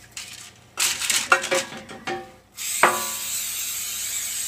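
A few knocks and clinks of a metal loaf pan being handled, then an aerosol can of coconut-oil cooking spray hissing steadily from a little past halfway, coating the sides of the pan.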